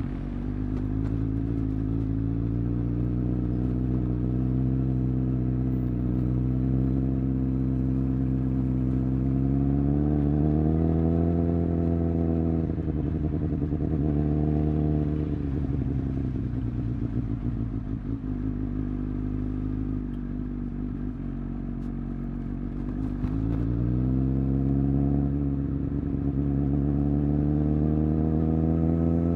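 Suzuki GSX-S1000's inline-four engine under way at highway speed. Its note climbs slowly, falls away for a few seconds in the middle, then climbs again near the end.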